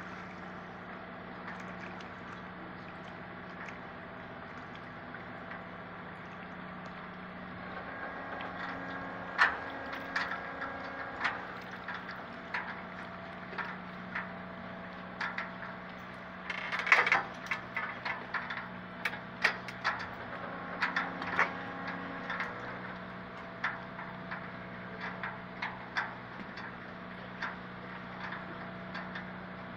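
Footsteps on a concrete boat ramp, irregular knocks and scuffs starting about a quarter of the way in, with a louder clatter of scuffs near the middle, over a steady low hum.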